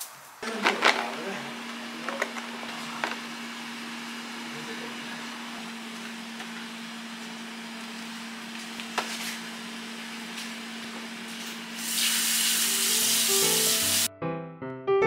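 Kitchen tap running into a stainless-steel sink while spinach and fruit are rinsed in a bowl: a steady hum and hiss with a few light knocks of the bowl and plastic tub. Near the end the flow hisses much louder for about two seconds, then cuts off as piano music comes in.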